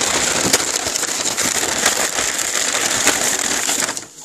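White tissue packing paper crinkling and rustling as a hand pulls it out of a cardboard box, stopping near the end.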